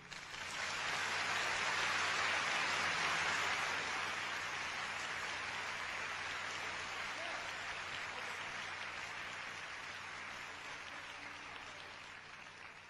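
Concert audience applauding, swelling about a second in and then slowly dying away, with a faint low hum underneath.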